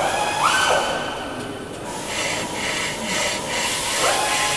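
Hand hacksaw with a fine-toothed blade cutting aluminium clamped in a bench vice, rasping back and forth in strokes that settle into a regular rhythm about halfway through, with a thin high ringing tone.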